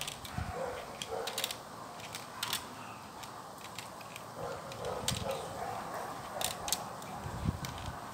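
A dog barking a few times, some barks in the first second or so and more about four to five seconds in, with a few sharp clicks in between.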